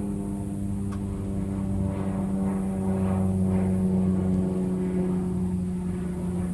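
A steady, low mechanical hum with a stack of overtones, like a motor or engine running at constant speed.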